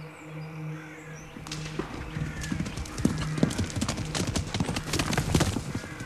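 A horse's hooves clopping on the ground, starting about a second and a half in and getting louder.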